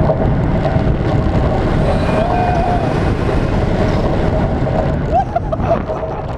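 On-ride sound of a steel roller coaster: loud rushing wind on the microphone and the train rumbling along the track, with brief rider yells a few times over it.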